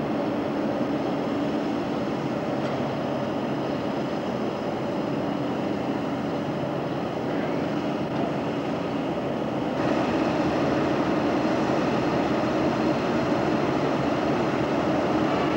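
Diesel locomotive engines running, a steady drone with a low hum. About ten seconds in the sound changes abruptly and becomes a little louder.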